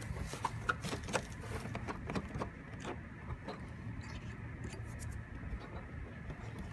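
Scattered light clicks, taps and scrapes of a radio-controlled speedboat being handled on its metal stand, fingers working the metal rudder and trim-tab hardware at the stern, over a low steady rumble.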